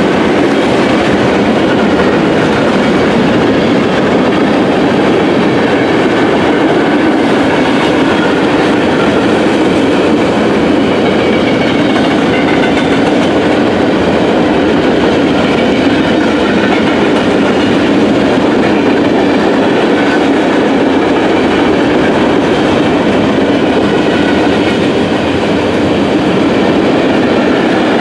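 CSX freight train's cars rolling past on the rails, a steady loud wheel-and-rail noise that runs on without pause.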